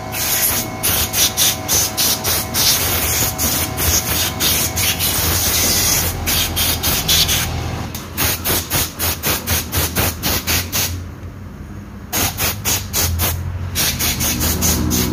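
Compressed-air blow gun blasting dust out of a scooter's CVT (transmission) cover in rapid short hissing bursts, about four a second, with a couple of longer steady blasts in between.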